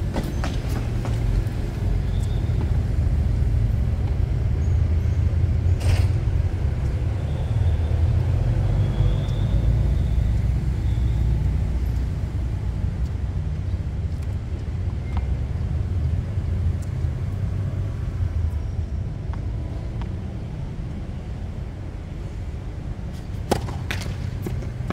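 Tennis balls struck with rackets: a sharp hit about six seconds in and a couple more close together near the end, over a steady low rumble.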